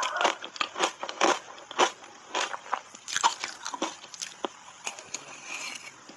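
Dry shaved ice dusted with matcha powder being bitten and chewed: irregular crisp crunches and crackles, denser in the first half and sparser near the end.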